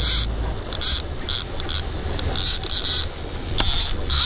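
Conventional trolling reel's drag buzzing in short, irregular high-pitched spurts as a hooked striped bass pulls line off, over the boat engine's steady low drone.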